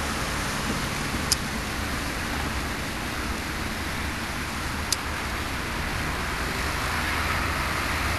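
Steady street traffic noise, a low rumble under an even hiss, with two sharp high ticks, about a second in and about five seconds in.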